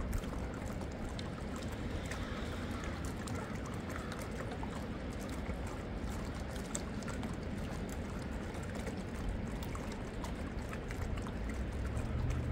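Running water: a steady rush with many small ticks over a low rumble.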